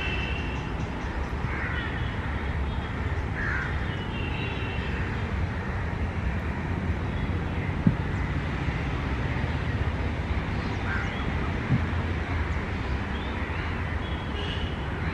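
Steady low rumble of a WAP-4 electric locomotive approaching slowly, with birds calling now and then and two short knocks, one about halfway through and one about two-thirds of the way in.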